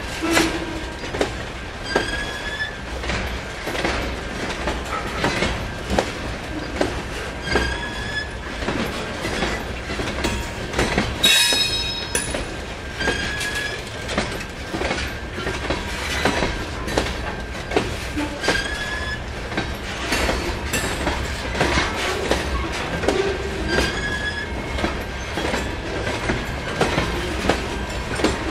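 Freight train cars rolling past at steady speed, wheels clicking over rail joints over a constant low rumble. Short rising wheel squeals recur about every five and a half seconds, with one louder, higher squeal near the middle.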